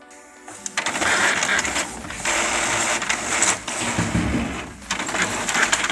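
Epson L210 EcoTank inkjet printer printing a page. It starts up about a second in, feeding paper as the print head shuttles back and forth, with brief pauses about two and five seconds in.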